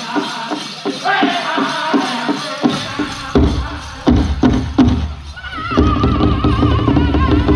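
Powwow drum group playing a chicken dance song on a big drum with group singing: a fast, even drumbeat under the voices, then a few hard, widely spaced drum strikes about three to five seconds in. Near the end a high, wavering lead voice starts a new line.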